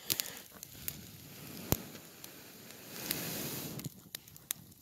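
Small stick-and-twig campfire burning, crackling with scattered sharp pops, one of them loud about a third of the way in. About three seconds in comes a brief swell of rushing noise.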